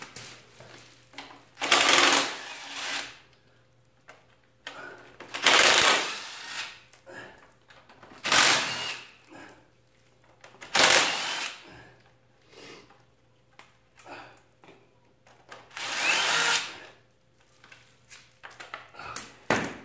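DeWalt cordless impact driver run in five short bursts of about a second each, backing out the bolts that hold the electric cooling fan and shroud to a radiator, with small metal knocks between bursts.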